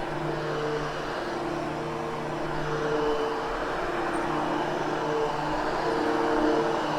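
Upright vacuum cleaner (Hoover Hush Tone) running steadily on carpet, its motor hum wavering as it is pushed back and forth.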